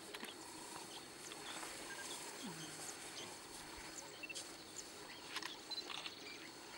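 Faint low calls from African elephants crossing a gravel road close by, one falling in pitch about two and a half seconds in, with scattered small clicks in the second half.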